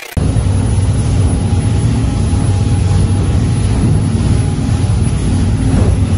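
Pilot boat's engine running steadily under way, a loud low hum mixed with wash of water and wind, heard from inside the cabin.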